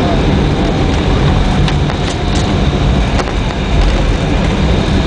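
Jet airliner cabin noise while taxiing after landing: a steady low rumble of the engines and of the wheels rolling over concrete, with a few faint clicks in the middle.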